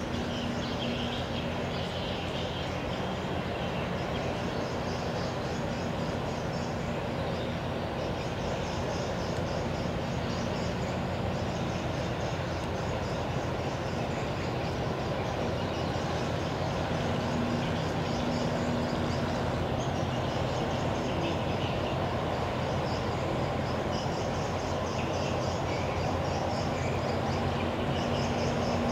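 A large cargo ship passing close by: a steady low engine drone with several hum tones over a rushing wash of water along the hull, growing a little louder in the second half.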